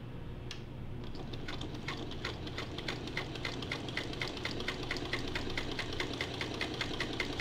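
A 1952 Singer 301 sewing machine stitching slowly. Its motor hums steadily while the needle mechanism ticks, starting with a few slow stitches and settling after about two seconds into an even run of roughly four to five stitches a second.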